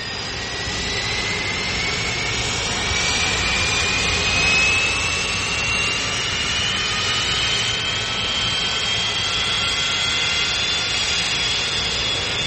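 Aircraft engine running at high power during a takeoff run: a steady roar with a thin whine that climbs slowly in pitch, growing louder over the first second or so.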